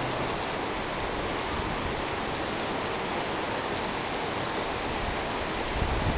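Heavy rain falling steadily on pavement and puddles, a dense even hiss, with a brief low rumble near the end.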